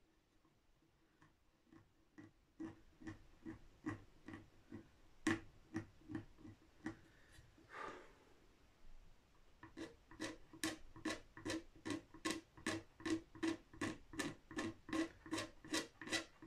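Short scraping strokes of a small hand-held blade across the finish of a guitar headstock, levelling the touched-up finish. The strokes come at about two to three a second, with a pause near the middle.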